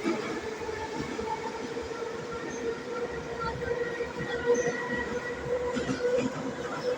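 St Petersburg metro train running at speed, a steady motor whine over the rumble of wheels on rail.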